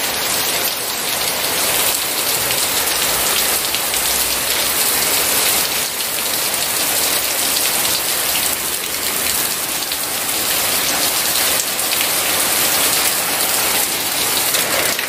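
Heavy rain falling on wet pavement, a steady, even hiss of dense drops.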